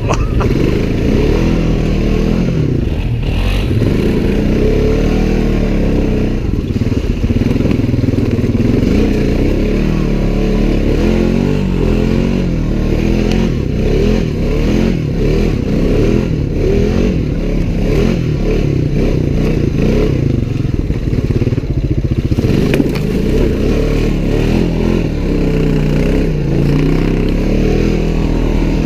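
Off-road vehicle engine running under load through snow, its pitch rising and falling as the throttle is worked, with some rattling and clatter from the machine over the rough trail.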